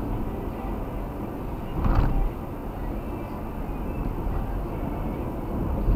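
Steady road and tyre noise of a car driving on a wet expressway, heard from inside the cabin, with a brief louder burst of noise about two seconds in.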